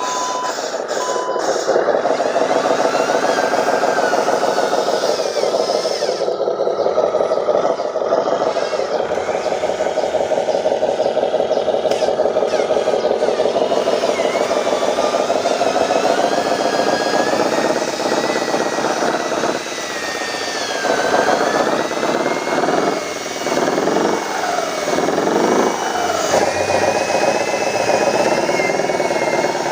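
Radio-controlled Hino 500 dump truck model driving, its motor and engine-sound drone running steadily, then rising and falling in pitch several times in the second half. A reversing beeper sounds in the first second or so.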